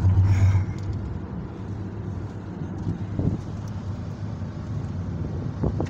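Road noise inside a car moving at highway speed: a steady low drone of engine and tyres, louder for the first half second.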